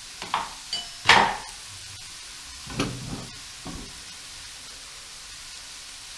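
Onions, diced bacon and sausage sizzling steadily in a large steel pot. A metal spatula knocks against the pot a few times in the first four seconds; the loudest is a ringing clank about a second in.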